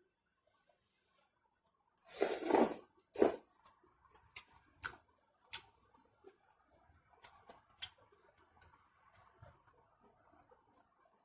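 Close handling noises: a short rustle about two seconds in and a sharp click a moment later, then scattered light clicks and taps.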